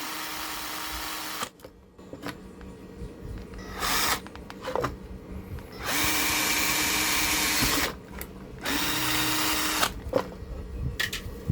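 Small electric drill boring a hole through a TV power-supply circuit board, run in four separate spells with short pauses between, the longest about two seconds.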